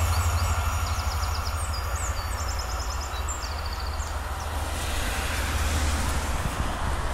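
Low rumble of a Cantus electric multiple-unit train fading away into the distance, with birds chirping in short repeated trills over it. The noise swells again near the end as a car passes on the road beside the line.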